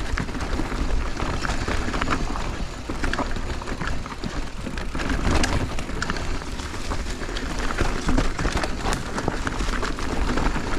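Mountain bike rolling down a rocky technical trail: tyres crunching over rocks and the bike rattling, with many small knocks throughout and a steady low wind rumble on the microphone.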